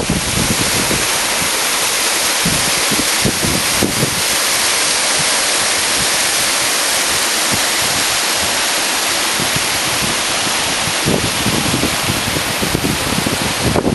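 Waterfall pouring into a rock pool: a steady, even rush of falling water. Wind buffets the microphone with low rumbles a couple of seconds in and again over the last few seconds.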